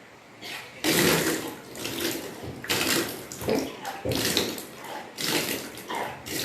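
Water being brought back up and splashing down in repeated gushes, about one a second, during kunjal kriya (vaman dhauti), the yogic salt-water vomiting cleanse.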